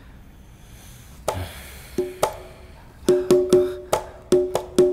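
Background music score: sharp, pitched wooden percussion strikes with a short ring, a few scattered hits from about a second in, then a quicker run of about three hits a second near the end.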